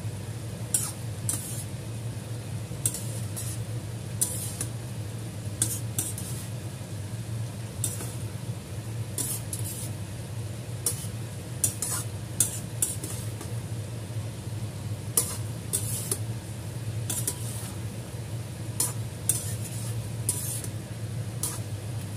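Slotted metal spatula scraping and clinking against a stainless steel pan as eggplant in sauce is stirred, in irregular strokes every second or so, over a faint sizzle and a steady low hum.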